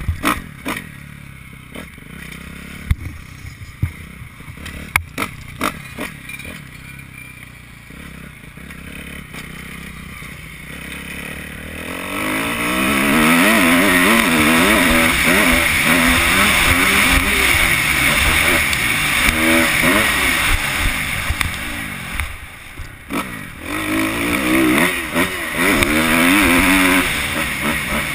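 2011 Kawasaki KX250F four-stroke single-cylinder motocross engine heard from the rider's helmet camera. For about the first twelve seconds it runs quietly at low throttle with sharp knocks and clatter. From then on it revs hard, its pitch climbing and dropping again and again, with a brief drop off the throttle about twenty-three seconds in.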